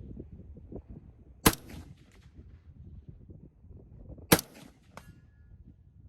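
Two rifle shots about three seconds apart, each with a short echoing tail. A moment after the second, a faint metallic ding is heard, typical of a bullet striking a steel target. Wind rumbles on the microphone underneath.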